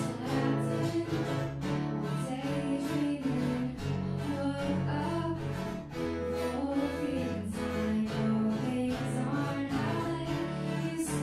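Music on string instruments, with guitar and sustained low string notes over a steady bass line.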